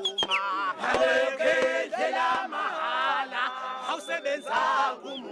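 Group of men chanting together in Zulu, several voices overlapping, with a few sharp clicks among them.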